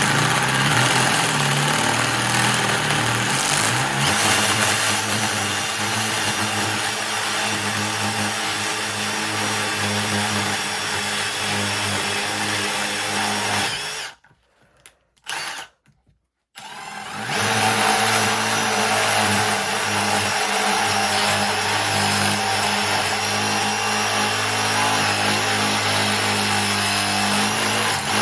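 Milwaukee M18 Fuel Gen 3 impact driver on speed 3, hammering a masonry bit into a red concrete brick. It runs steadily, stops for about three seconds around the middle with one short blip, then starts again. The dense red concrete makes this slow going.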